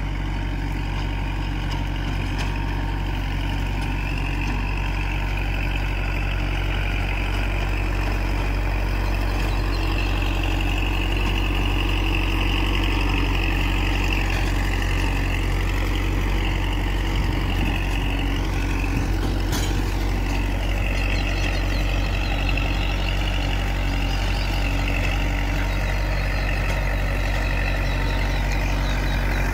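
Kubota compact tractor's diesel engine running steadily under load while it drives a rear rotary tiller through the soil, with a higher whine that wavers up and down over the engine note.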